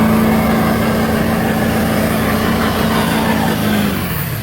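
Loud, steady engine noise with a constant droning hum, easing off near the end.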